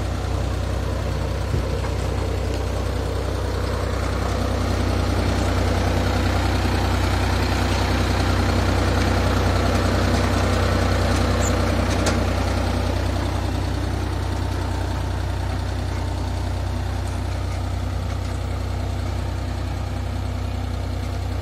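Tractor engine running steadily under load while pulling a potato planter through the field, with a deep, even hum that grows louder for several seconds in the middle.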